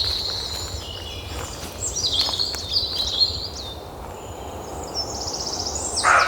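Several songbirds singing and chirping, with quick whistled notes and a rapid trill near the end, over a steady low rumble. A short, louder, rougher sound comes right at the end.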